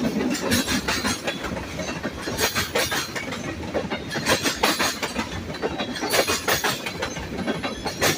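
Freight train rolling past, its wheels clacking irregularly over the rail joints over a steady rumble.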